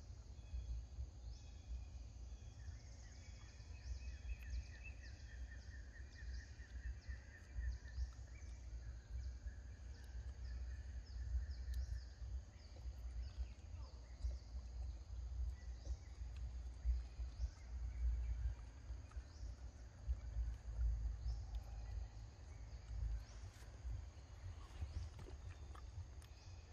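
Forest ambience of steady, high-pitched insect buzzing with a warbling trill in the first half, over a low, uneven rumble.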